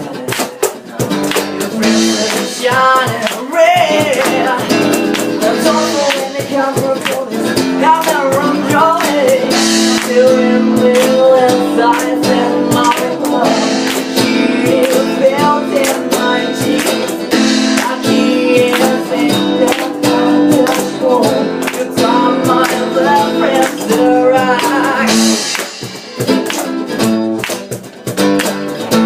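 Live band playing a song: guitars with a melody line over a steady beat.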